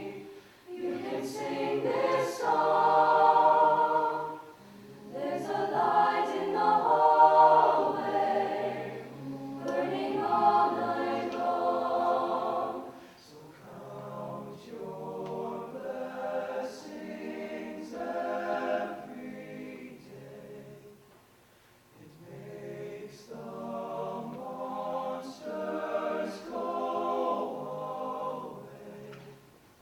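A student a cappella vocal group singing in close harmony without instruments. Its phrases swell and break off with short pauses between them.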